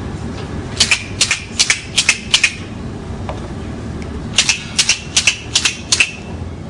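Montessori sound cylinders, small cardboard cylinders with loose filling, shaken back and forth in two bursts of about five sharp rattles each, the second burst about two seconds after the first. Each cylinder is shaken to compare its sound and find its matching pair.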